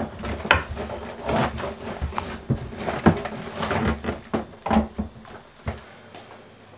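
A rapid, irregular run of knocks, clunks and rustles, as of things being handled and shifted about close to the microphone, stopping abruptly near the end.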